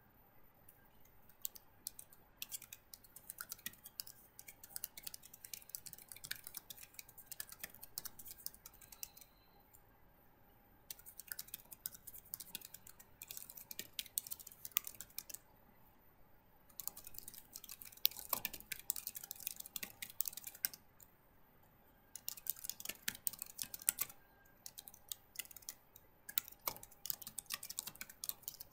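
Typing on a computer keyboard: quick runs of keystrokes in about five bursts, with pauses of a second or two between them.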